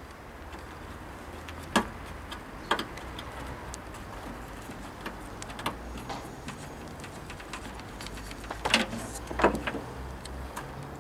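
Hand tools clicking and knocking against metal while working under the hood of a Chevy S-10 Blazer, with a few louder clanks about 2 and 3 seconds in and a pair around 9 seconds, over a low steady hum.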